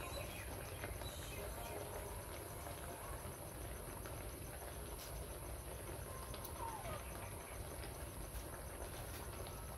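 Insects trilling: a steady high-pitched drone with a faint, evenly pulsing trill beneath it, over a low steady rumble.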